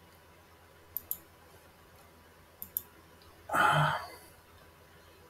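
Computer mouse double-clicked twice, about a second and a half apart, then a short breathy vocal sound, like a sigh or exhale, lasting about half a second.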